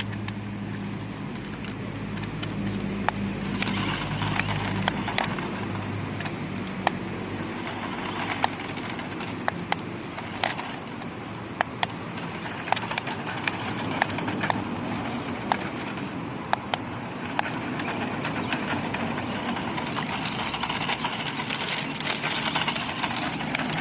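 Budget two-wheel-drive RC jeep driving over an uneven road: its small electric motor runs with a low hum, mostly in the first several seconds, while frequent clicks and knocks come from the wheels and plastic body on the rough surface.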